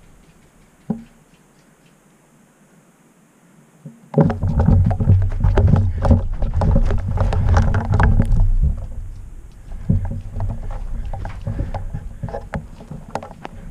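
A few seconds of quiet with a single click about a second in, then from about four seconds in the loud, jostling rumble and irregular thumps and clicks of someone running over dry dirt and grass carrying a rifle, the body-worn camera's microphone knocking and catching wind.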